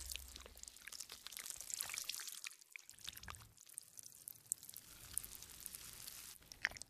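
Faint, irregular wet clicks and crackles of a white-ink marker's metal tip pressing and squishing into skin.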